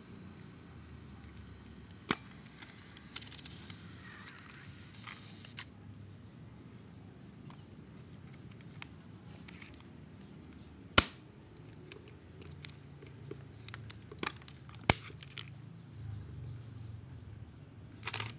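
Sharp mechanical clicks and snaps of a Canon EOS 5 35 mm autofocus film SLR being handled, with its film back opened and its buttons worked. Two loud, sharp snaps come about four seconds apart in the second half, among lighter clicks.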